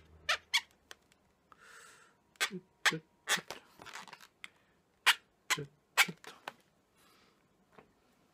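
Marker pen drawing on a twisted latex balloon: about a dozen short, sharp squeaks as the tip drags over the rubber, with a couple of softer hissing rubs between them.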